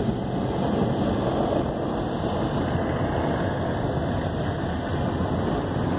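Automatic car wash air dryer blowers running, a steady rush of air blasting onto the car, heard from inside the cabin as it exits the wash bay.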